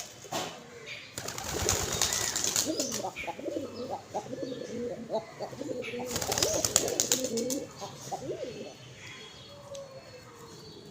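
Pigeons cooing in low, wavering calls through the middle, with two noisy flurries of wings flapping and splashing as they bathe, about a second in and about six seconds in.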